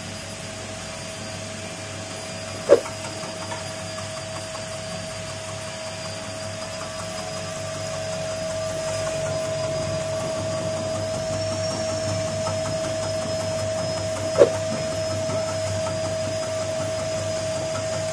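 Electric chip-slicing machine running with a steady whine and hum while a bitter melon is fed through and sliced thin. Two sharp knocks, about three seconds in and again near the end, and it grows louder from about halfway through.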